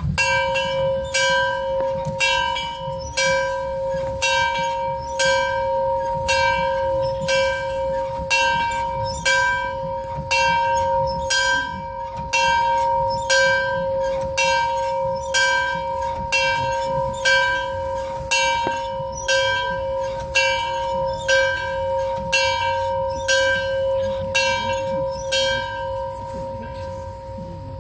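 A large bell tolled repeatedly in a steady, even rhythm. Each stroke lands with a bright clang, and the bell's deep hum rings on unbroken between strokes. It fades away after the last stroke near the end.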